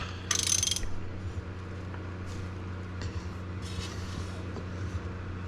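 A brief metallic rattle about half a second in, then faint clicks and knocks of hands and metal parts being handled on a pit bike and its stand, over a steady low hum.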